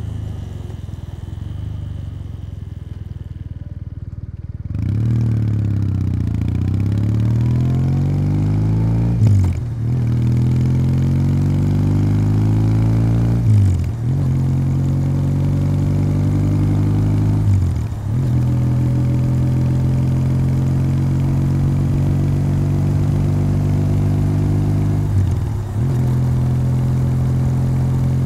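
Kawasaki W800's air-cooled 773 cc parallel-twin through its stock exhaust, running at low revs, then pulling hard under throttle from about five seconds in. The engine note climbs and falls back sharply with three quick upshifts, then holds steady at cruise, with one more brief dip in revs near the end.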